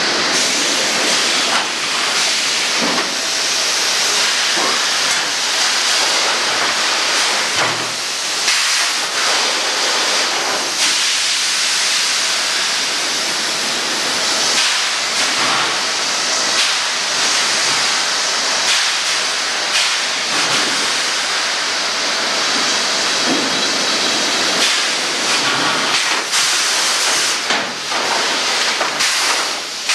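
Sawmill machinery running as a loud, steady hissing din, with a few faint knocks.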